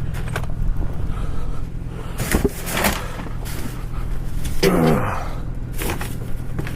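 Vehicle engine idling with a steady low hum, under a few sharp knocks and clatters from items being handled.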